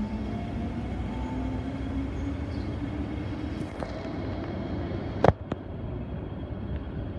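MTR M-train electric multiple unit accelerating, its traction motor whine rising in pitch over the first few seconds above a steady rumble of the train. About five seconds in come two sharp knocks close together.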